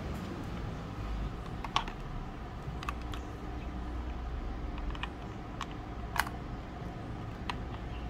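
Scattered light plastic clicks and taps from a handheld battery mini vacuum being turned over and handled, about seven in all, the loudest a little under two seconds in and about six seconds in, over a steady low background hum. The vacuum's motor is not running.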